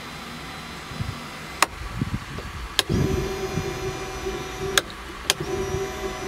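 Electric fuel pump switched on and off at a console toggle switch: two switch clicks, then the pump runs with a steady whine for about two seconds, stops with a click, and whines again for about a second before another click cuts it off.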